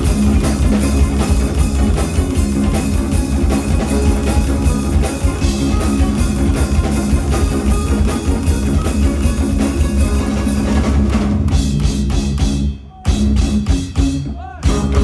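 Two electric shamisens and a drum kit playing loud instrumental rock. The band stops short twice in the last few seconds.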